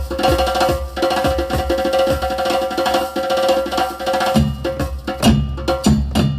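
Electronic percussion samples finger-played on a Maschine Studio pad controller: a quick Lebanese-style hand-drum rhythm of sharp strikes over a steady held tone. About four seconds in the tone stops and deeper drum hits join the pattern.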